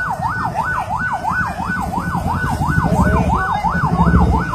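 An emergency vehicle's siren in a fast yelp, sweeping up and down about three times a second, over a low rumble that swells near the end.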